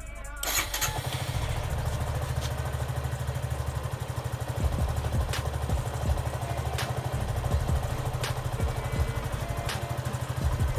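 Suzuki Gixxer SF's 155 cc single-cylinder engine catching about half a second in, then idling with a steady, even pulse. A light tick recurs about every second and a half.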